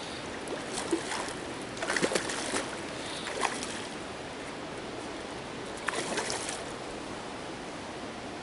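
Hooked trout thrashing and splashing at the water's surface in short bursts, in clusters about two seconds in and again about six seconds in, over a steady background hiss.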